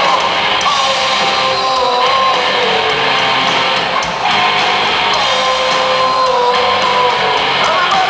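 Loud live pop-punk band playing: distorted electric guitars over drums, with a held melody line.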